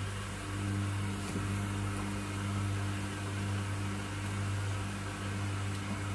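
Steady low mechanical hum of a running household appliance over a faint hiss, with a second, higher steady tone coming in about half a second in.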